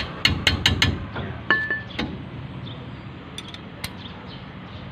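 Metal clicks and clinks of a wrench working 14 mm bolts on the brake assembly. A quick run of about five sharp clicks comes first. About a second and a half in, a clink rings briefly, followed by a few scattered ticks.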